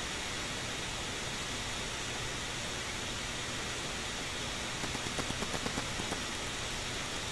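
Steady background hiss, with a few light clicks and scrapes about five seconds in from a spoon working in a frying pan.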